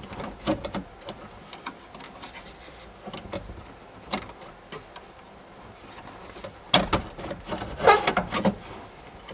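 Scattered clicks and knocks of hand tools and hardware as mounting fasteners are worked loose from the OnStar module, with a louder cluster of clatter about seven to eight and a half seconds in.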